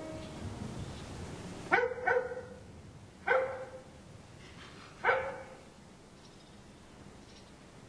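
A dog barking four times: a quick pair of barks, then two single barks a second or two apart.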